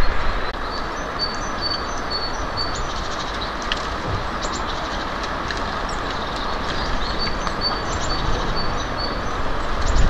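Steady rushing background noise, with a small songbird repeating a high note about three times a second in two runs: one from about a second in, the other from about seven and a half seconds in.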